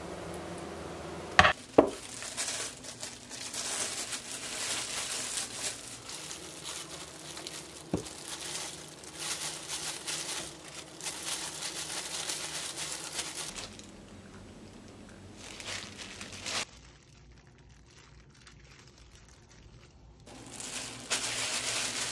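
Clear plastic glove crinkling in bursts as hands press and roll cooked rice into a ball, with two sharp knocks about a second and a half in.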